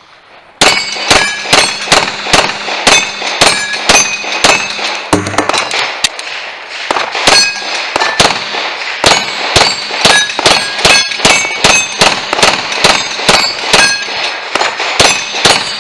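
A long string of pistol shots, about two a second, each answered by the clang of a struck steel plate target ringing. There is a brief pause about five seconds in before the firing resumes.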